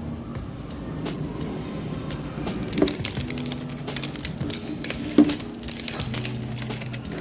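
Background music with crinkling and clicking from toy packaging being handled and opened, and two sharper knocks about three and five seconds in.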